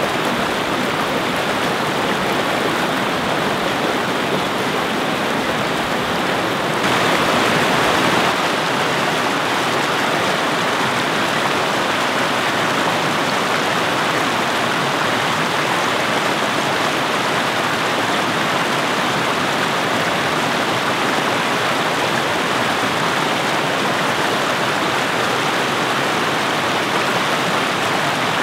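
Small river rushing and cascading over rock ledges: a loud, steady rush of water. The sound shifts about seven seconds in, briefly louder and brighter, then settles into a slightly different rush.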